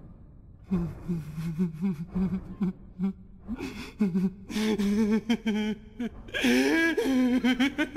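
A man's low, stifled chuckling in short broken bursts. It swells about halfway through into louder laughter that climbs in pitch near the end.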